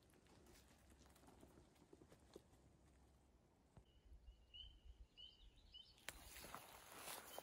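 Near-silent outdoor quiet with faint footsteps and rustling through low brush, louder in the last second or so, and a short run of faint high chirps a little past the middle.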